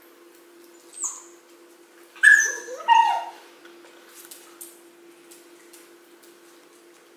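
Shiba Inu whining vocally, the 'talking' sounds the breed is known for: a brief high call about a second in, then a louder, pitch-gliding whine lasting about a second a little after two seconds.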